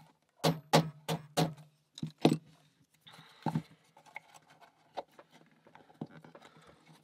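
Small hammer tapping wooden pegs into the laser-cut plywood panels of a wooden puzzle box: four quick light taps in the first second and a half, then a few more spaced out and growing fainter.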